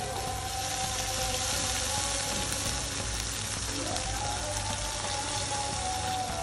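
Rice noodles sizzling in a hot wok with a little water among them, stirred with a wooden spatula: a steady frying hiss.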